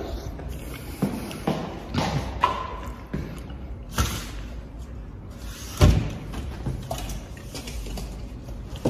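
Scattered knocks and thumps of things being handled and set down on a table, with a heavy thud about six seconds in.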